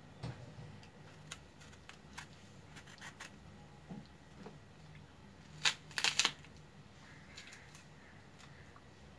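Pomegranate being peeled by hand: scattered small clicks and crackles as the rind is pried off, with a short cluster of louder clicks about six seconds in.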